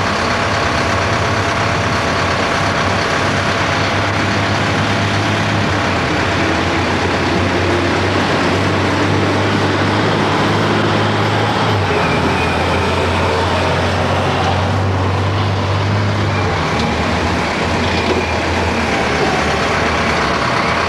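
Heavy diesel construction equipment running: a steady low engine drone whose pitch steps down about twelve seconds in and weakens near seventeen seconds, over a constant rushing noise.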